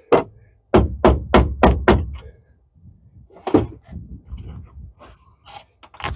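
A mallet knocking on a wood block held against the fitting of a side-by-side's framed upper door, tapping it into adjustment. There is a quick run of six solid knocks about three a second, another knock about three and a half seconds in, then lighter knocks and rattles.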